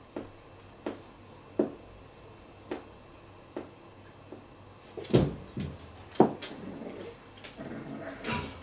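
Faint sharp ticks about once a second, then from about five seconds in two cats break into a fight: sharp hisses and spits with growling, wavering cries as they grapple.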